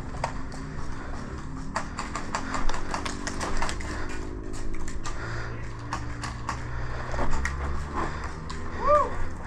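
Airsoft gunfire: scattered sharp clicks and snaps of shots and BB hits, irregular and thickest from about two to four seconds in.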